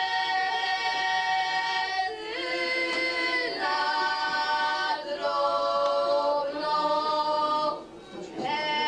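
A girls' folk singing group singing unaccompanied, several voices together, in long held notes that move to new pitches every second or so. The phrase ends with a short breath break about eight seconds in, and a new phrase begins.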